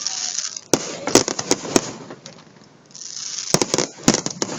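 Fireworks going off: sharp bangs in two quick clusters, one about a second in and one near the end, over a hissing crackle.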